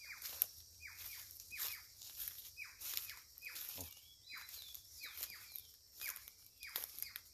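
Jays (gralhas) calling again and again: short harsh calls that each drop steeply in pitch, often two or three in quick succession. Footsteps crunch on dry leaf litter.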